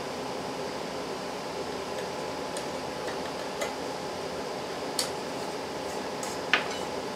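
A metal spoon clinking against glass canning jars and a steel pot as salsa is spooned into the jars: a few sharp clinks, the loudest near the end, over a steady hiss.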